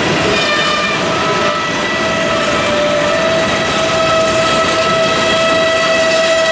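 Freight train cars (tank cars and covered hoppers) rolling past with a steady rumble and rattle of wheels on rail. Over it is a high-pitched squeal of several steady tones from wheels against the rail, shifting in the first seconds and growing stronger about two-thirds of the way in.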